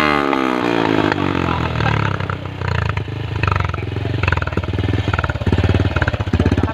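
Honda Wave 110i's single-cylinder four-stroke engine, loud through its exhaust, falling from high revs in the first second after being held at the rev cut-off, then settling into an even, pulsing idle.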